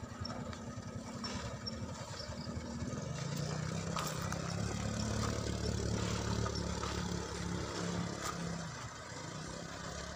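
Truck engines running as heavy trucks drive slowly along a rough dirt track. The engine note rises about three seconds in, holds, and eases off near the end.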